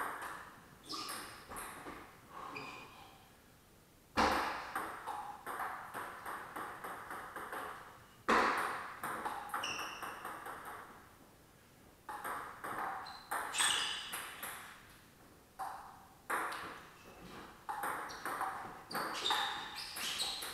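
Table tennis rallies: the ball clicking back and forth off the paddles and the table in a quick, even rhythm. There are short pauses between points and a few harder, louder hits.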